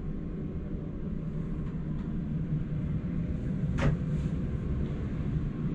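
Steady low machinery rumble and hum filling a small boat cabin, with a single sharp knock a little under four seconds in.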